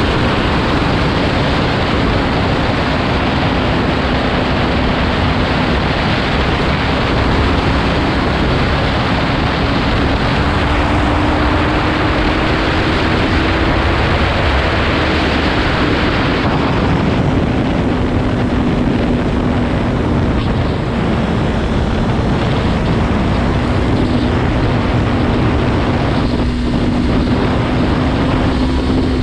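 Sport motorcycle engine running at steady road speed, its note drifting slightly up and down, under heavy wind noise on the microphone.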